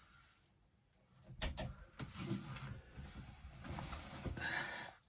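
A few sharp clicks, then quiet, uneven rustling and shuffling of someone moving about and handling things.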